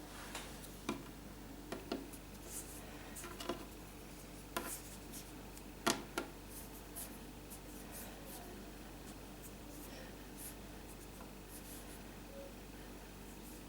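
Hands working Play-Doh modelling clay with plastic tools on a table: scattered light taps, clicks and rubbing, busiest in the first half, over a steady low hum.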